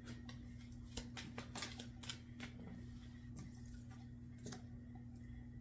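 Faint clicks and rustles of tarot cards being handled, a cluster of them about a second in and a couple more later, over a steady low hum.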